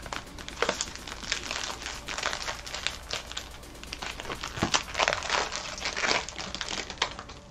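Cellophane wrappers of Mosaic football card cello packs crinkling and ripping as several packs are torn open by hand at once: a run of irregular crackles and tears that thins out near the end.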